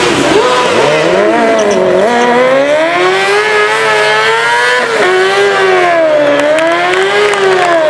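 Stunt motorcycle engines revving hard, their pitch swinging up and down over and over as a rear tyre is spun in a smoking burnout.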